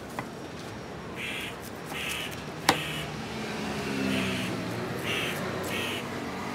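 Heavy fish knife chopping a tuna on a wooden block: light knocks at the start and one sharp, loud chop about two and a half seconds in. Crows caw about five times over a low engine hum.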